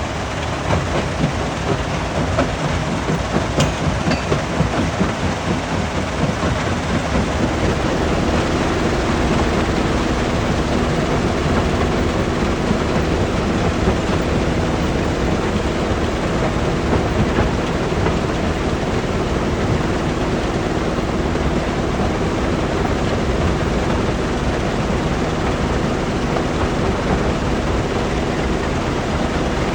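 Rock crusher at work: a loud, continuous rumbling clatter of stone being broken. Irregular knocks stand out over the first several seconds, and then it settles into a steadier drone with a low hum.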